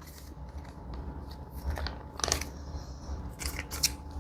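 A few soft clicks and scrapes from handling the ration's main-meal pouch and utensil while eating, over a low steady hum.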